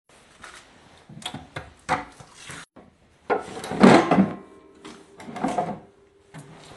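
Handling noise: an irregular run of knocks, rubs and scrapes, with one longer, louder scraping rush about halfway through.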